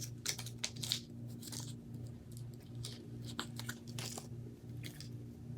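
Scattered light clicks and rustles of small parts being handled, as a screw is picked out of the driveshaft kit, over a faint low pulsing hum.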